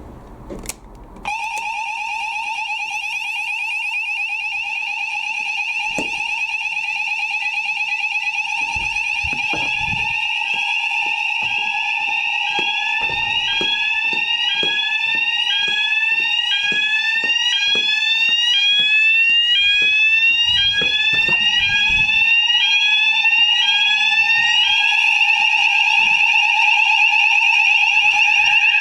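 Building fire alarm sounders set off for a weekly test: a loud steady alarm tone starts suddenly about a second in and slowly grows louder. Around ten seconds in a second sounder joins it with a repeating rising sweep, about one and a half a second.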